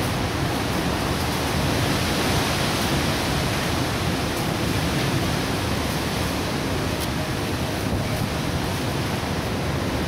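Strong wind blowing, a steady loud rushing noise with a fluctuating rumble in the low end.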